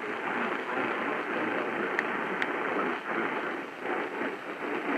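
Hiss and static from an AM radio tuned to a distant station that is fading out, with two sharp static crackles about two seconds in.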